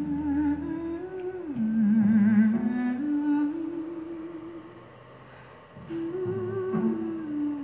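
Music with a single wavering, humming melody line, played through a 1.5 W PCL84 valve amplifier under test. It dips quieter for a moment about five seconds in.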